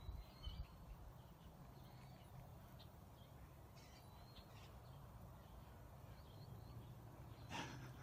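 Near silence: faint outdoor background with distant birds chirping in short high calls over a low steady hum, and one brief louder sound near the end.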